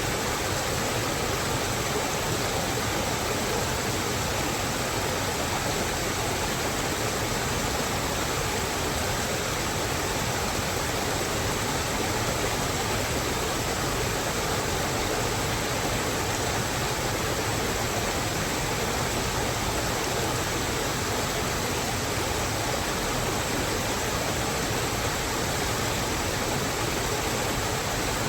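Steady, even rush of running or falling water, unchanging throughout, with no single drops, splashes or other sounds standing out.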